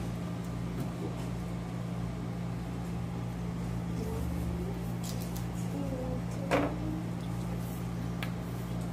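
Steady low electrical hum in the room, with a few soft clicks and taps from a knife and fish being handled on a wooden cutting board while bluegill are cleaned. The clearest click comes about two thirds of the way through.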